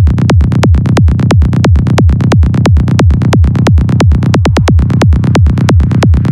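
Loud electronic dance music with a fast, driving beat of about seven hits a second.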